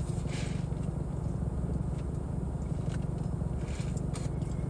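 Steady low rumble of a car idling with its air conditioning running, heard from inside the cabin, with a few faint short clicks on top.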